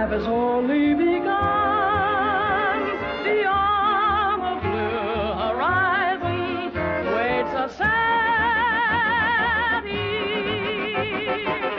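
Orchestra playing a popular-song arrangement: held, wavering melody notes, with a rising slide about six seconds in and a new sustained chord about two seconds later.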